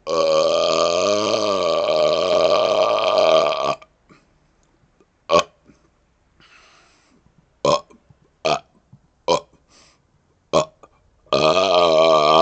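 A man's long, drawn-out belly burp lasting about three and a half seconds, wavering in pitch. Then five brief, sharp sounds spaced a second or so apart, and another long burp begins near the end.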